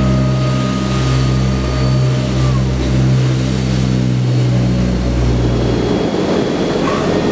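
Loud cabin noise inside a Transall C-160 transport aircraft in flight: the steady drone of its turboprop engines over a rushing roar. About six seconds in, the low droning tones drop away suddenly and a rougher rushing noise is left.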